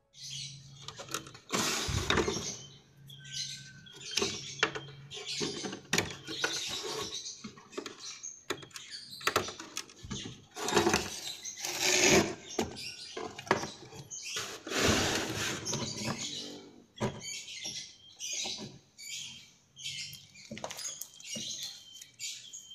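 Irregular clattering, knocking and scraping as a CRT television's chassis circuit board and cabinet parts are handled and pulled apart by hand.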